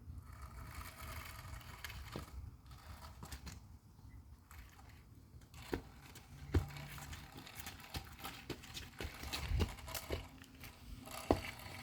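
Handling noise as tape is fixed on a Lego airplane: scattered small clicks and rustling, over a low rumble.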